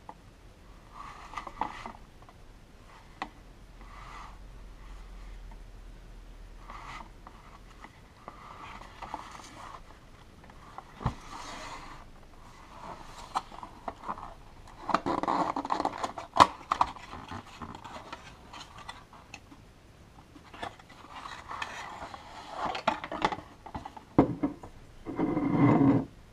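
Hands handling a cardboard gift box: cardboard rubbing and scraping, flaps being opened and a glass liqueur bottle slid out of the box, with scattered sharp clicks. The handling is loudest in the middle and just before the end.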